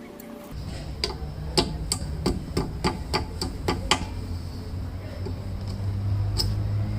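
A run of about ten sharp metallic clicks, roughly three a second, then a single click near the end, from hand work on a car's rear wheel hub. A low steady rumble starts about half a second in and grows louder beneath them.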